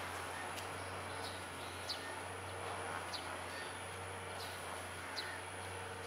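Juvenile Eurasian tree sparrow chirping: short, high single chirps at regular intervals, about one a second, over a steady background hum.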